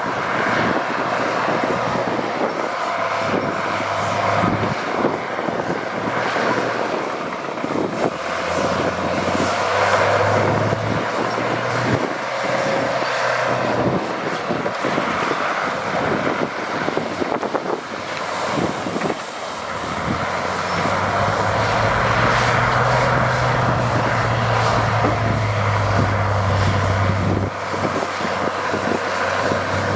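Heavy diesel earthmoving machinery engine running steadily, its note rising and holding under load for several seconds about two-thirds of the way through.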